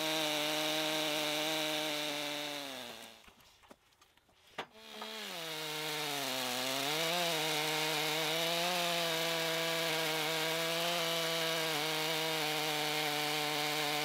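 Two-stroke chainsaw on a Logosol M8 chainsaw mill ripping lengthwise through a log, its engine running steady under load. About three seconds in it sinks in pitch and dies away, a single click sounds in the short quiet gap, then the saw comes back up, dips briefly as it bites, and runs steady under load again.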